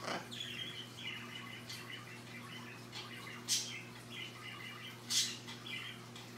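Scarlet macaw preening: soft high chirps repeating throughout, with three brief rustles of feathers, one right at the start, one about three and a half seconds in and one about five seconds in.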